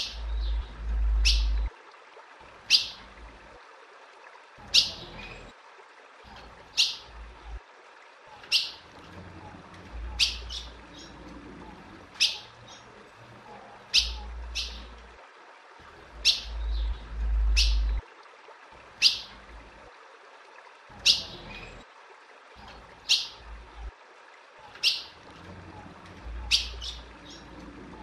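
Female ultramarine grosbeak (azulão) calling: short, sharp, high chip notes, one every second or two, sometimes in quick pairs.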